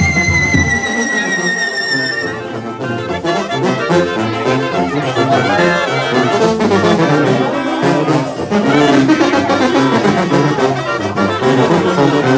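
Brass band music playing, with trumpets and trombones. During the first two seconds a high whistle slides slowly downward over the music and cuts off.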